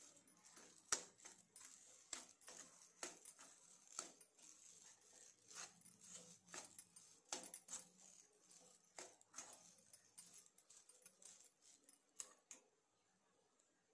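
Steel spoon tapping and scraping against a non-stick pan while stirring mashed potato: faint, irregular knocks about once or twice a second, stopping near the end.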